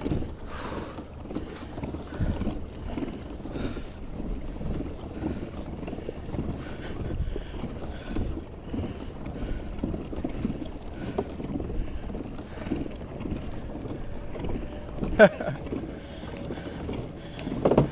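Fishing kayak moving across the sea: water sloshing and splashing along the hull in an uneven rhythm, with wind on the microphone. A single sharp knock sounds near the end.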